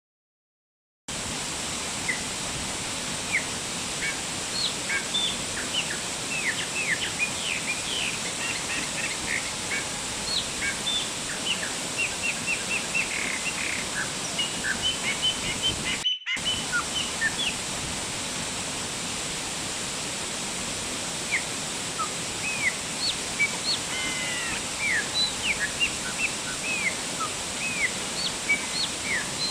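Waterfall falling steadily, with many birds chirping over it in quick, short calls. Silent for the first second, with a brief drop-out about halfway.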